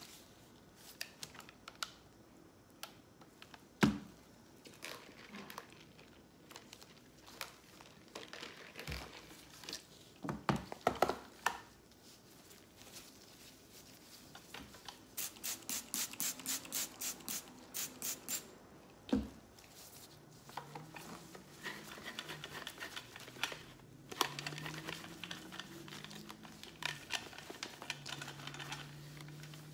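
Cloth wiping and rubbing the plastic body of a Pyle megaphone, with knocks and clicks as the megaphone is handled and set down. Midway, a run of about a dozen quick, even rubbing strokes.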